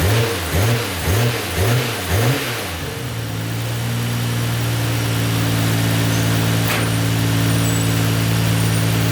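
Nissan Skyline GT-R (BNR32) RB26DETT twin-turbo straight-six blipped quickly about five times, the revs rising and falling roughly twice a second. It then settles into a steady idle about three seconds in, with one sharp click near seven seconds.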